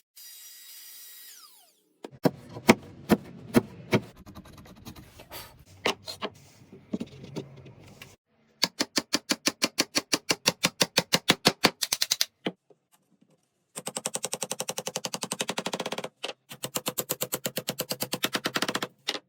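Striking and knocking on wood during joinery work. First come irregular sharp knocks, then runs of rapid, evenly spaced strikes, about six a second and later faster.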